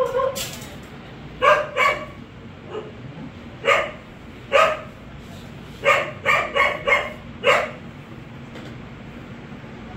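A dog giving short yelping barks, about nine in all, with a quick run of four in a row past the middle.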